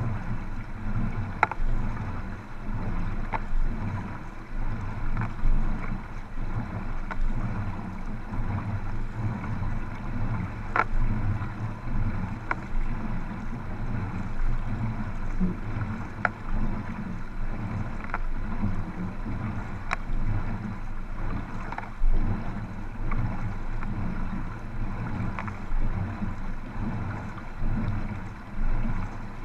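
Paddle strokes splashing and water rushing along sprint kayak and canoe hulls, heard from a camera right at the waterline, with a steady low rumble of water and wind on the microphone. Short sharp splashes recur about every two seconds.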